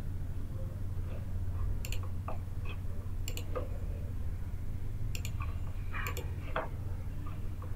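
Computer mouse clicks while answering an on-screen quiz: a handful of sharp clicks a second or two apart, with softer ticks between them, over a steady low electrical hum.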